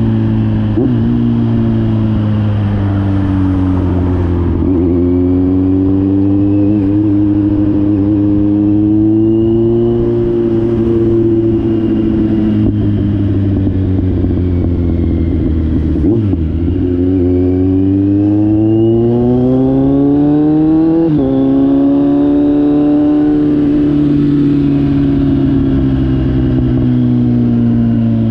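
Kawasaki Z900 inline-four engine through an SC-Project GP1 aftermarket exhaust, its note rising and falling several times with the throttle. Its pitch climbs steadily for a few seconds, then drops sharply about three quarters of the way through.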